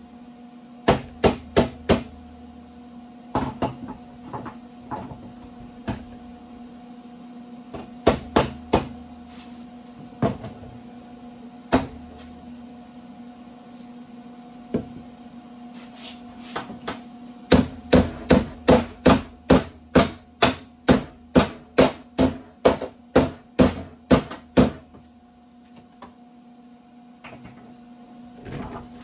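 Hammer tapping on the steel edge of a new lower door skin patch panel: scattered sharp strikes at first, then a steady run of about two to three blows a second for several seconds, with a steady hum underneath.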